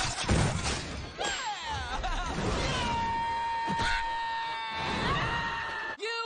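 Cartoon soundtrack of frantic screaming and commotion over music, with one long, shrill, held cry from about three to five seconds in that slides upward at its end. It cuts off abruptly near the end.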